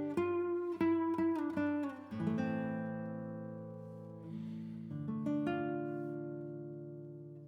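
Background music on acoustic guitar: a quick run of plucked notes, then slow chords left to ring and fade.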